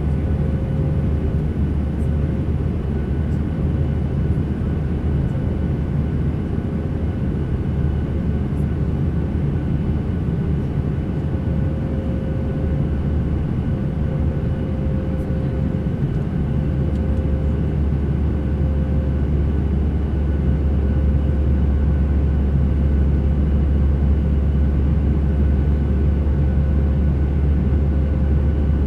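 Steady drone of an airliner's engines and airflow heard inside the passenger cabin, deep and even, with a faint steady hum tone above it. It grows slightly louder about two-thirds of the way through.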